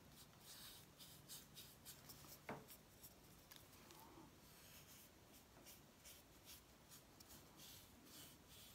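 Faint, repeated strokes of a wide angle-shader paintbrush brushing acrylic paint onto a hard, dried bottle-gourd shell, with one small click about two and a half seconds in.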